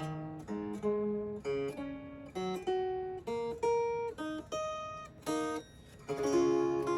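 Vintage Silvertone hollowbody guitar played clean: a melodic run of single picked notes, then a strummed chord about six seconds in.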